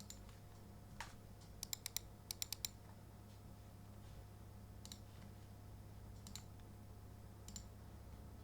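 Keystrokes on a Womier/Gamakay K87 mechanical keyboard with lubed and filmed Cherry MX Black Hyperglide linear switches and POM keycaps: a quick run of about seven presses around two seconds in, with single, spaced-out presses before and after.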